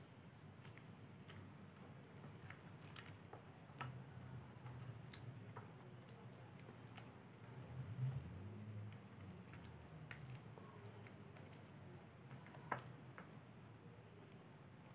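Faint sticky squelches and small wet clicks of homemade baby-powder slime being squeezed and kneaded by hand in a glass bowl, with a plastic spatula scraping against it. A soft thump comes about eight seconds in, and a sharper click near the end.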